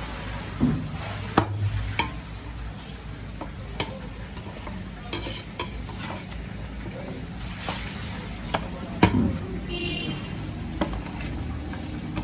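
Metal ladle stirring and scraping through pieces of head and trotter meat in a wide steel pan, knocking against the metal every second or few, over a steady sizzle from the hot pan.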